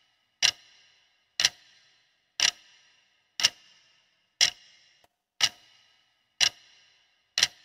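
Countdown-timer ticking sound effect: a sharp clock-like tick once a second, eight ticks in all, each with a brief ringing tail and silence between.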